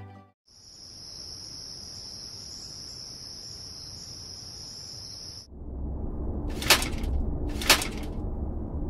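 Steady cricket chirring as night ambience for about five seconds. It then cuts to a low hum, with two loud, sharp knocks about a second apart.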